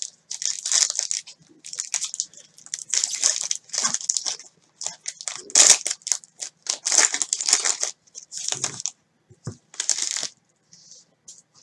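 Foil wrapper of a trading-card pack crinkling and tearing as it is ripped open and the cards are pulled out. The crackly rustles come in irregular bursts and stop about ten seconds in.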